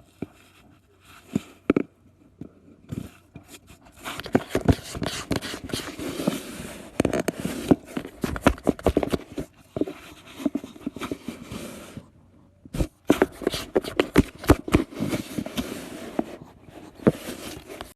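Scraping and rustling with many quick taps and clicks in a small room, with a brief break about twelve seconds in.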